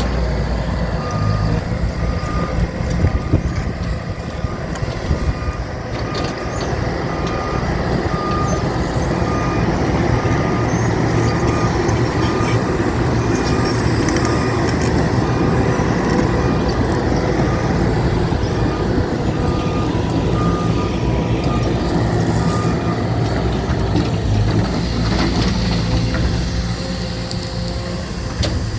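A heavy construction vehicle's engine running steadily while its reversing alarm beeps over and over at an even pace.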